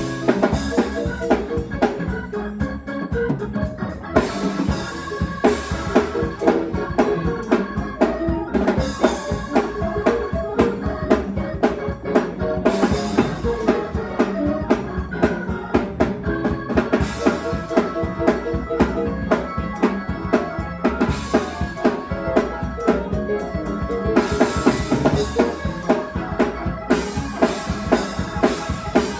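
Church organ and drum kit playing a gospel groove together, sustained organ chords over a fast, steady drum beat.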